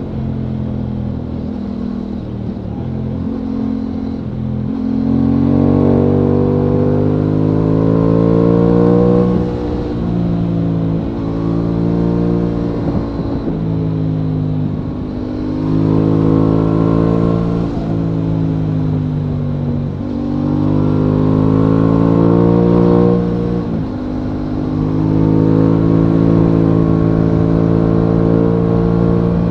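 Aprilia Tuono 660's parallel-twin engine, heard from the rider's seat on the move. The revs climb and drop back sharply four times as the rider opens and closes the throttle, with steadier running between.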